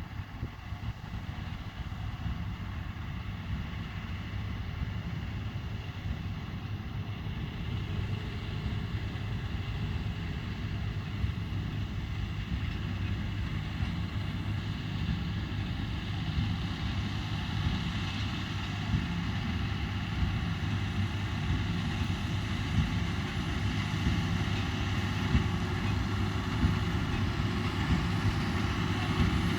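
Tractor and Krone Combipack baler-wrapper running steadily in the field, the engine drone growing gradually louder, with occasional sharp knocks in the second half.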